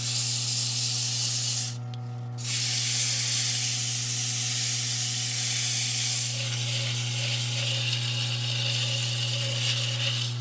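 Sandpaper hissing against a monkey puzzle wood vase spinning on a Jet mini lathe, over the lathe motor's steady hum. The hiss breaks off for a moment about two seconds in, then resumes.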